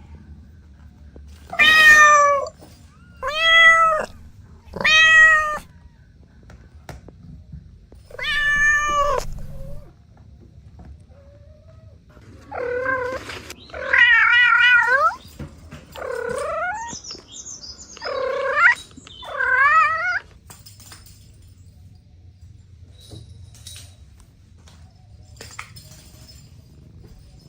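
A series of about nine cat meows, each under a second or so long. The first four are fairly steady in pitch, and the later ones waver and warble. Only a low background hum follows after about 20 seconds.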